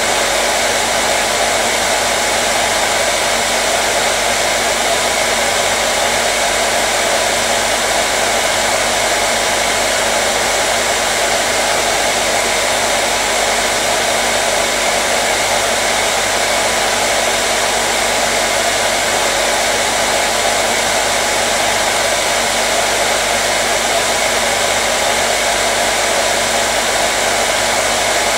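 Electric hair dryer running continuously: a steady, unchanging rush of air and motor hum with a faint whine.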